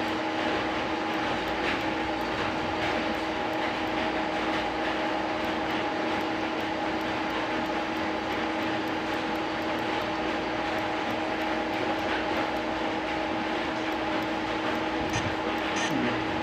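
Lathe simulator's machine-running sound: a steady motor hum with a few fixed tones over a noisy whir, with a couple of faint clicks near the end.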